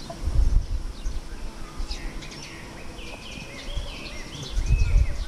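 Small birds chirping and singing, a run of short rising-and-falling notes repeating from about two seconds in, over outdoor background noise with two brief low rumbles, one near the start and one near the end.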